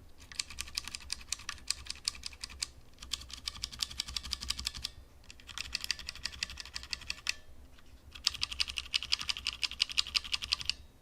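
Typing on a DREVO Gramr 84 mechanical keyboard with Outemu brown (tactile, non-clicky) switches: rapid key presses in four runs separated by short pauses.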